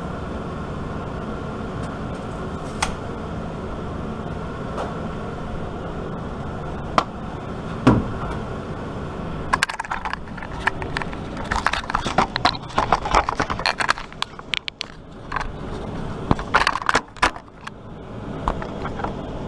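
A steady low background hum with a few single clicks, then from about ten seconds in a dense run of rattling clicks and knocks as the camera and tools are handled and moved.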